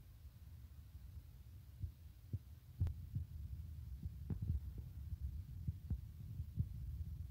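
Wind buffeting a phone microphone: a low, uneven rumble with irregular thumps, and a sharper knock about three seconds in.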